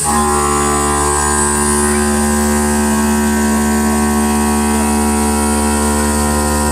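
Electric motor of a stone-working CNC machine running at a steady speed, a loud hum-and-whine of several even pitches that comes on abruptly at the start.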